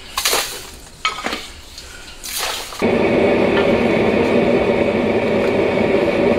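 A metal spatula scoops coarse salt and spreads it over foil in a wok, giving three short scraping, pouring rustles. About three seconds in, a loud steady noise with a hum starts suddenly and covers the rest.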